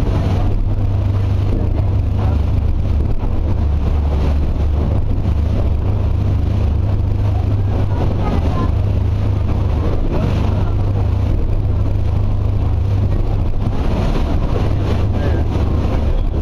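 Boat engine running steadily while under way, a constant low drone with a rushing noise over it.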